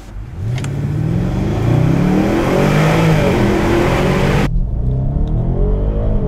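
The BMW 750i xDrive's 4.4-litre twin-turbo V8 under a full-throttle kick-down, heard from inside the cabin: the revs climb hard, dipping briefly at the upshifts and climbing again. A rushing hiss over the engine cuts off abruptly about four and a half seconds in, leaving the engine note rising.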